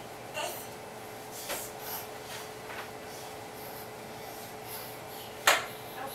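Small clicks and smacks of a baby being spoon-fed rice cereal, a few soft ones in the first three seconds and one sharper click about five and a half seconds in, over a faint steady hum.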